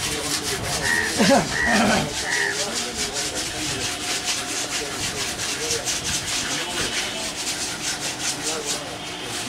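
Rapid, even rubbing strokes that repeat steadily, with three short high-pitched chirps about a second in.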